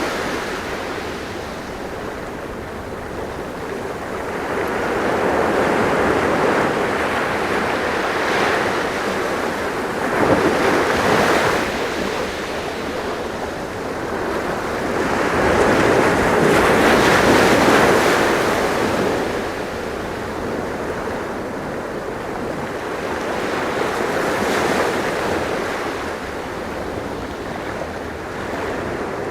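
Ocean waves breaking and washing on a shore, swelling and falling back every several seconds, with a loud surge about ten seconds in and a longer one around the middle. Some wind rumble on the microphone underneath.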